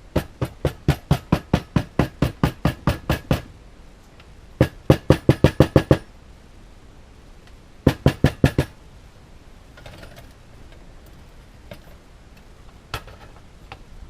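Three runs of sharp clicks at about four a second, then two single clicks near the end: a butane camp cooker's igniter being clicked over and over to light the burner.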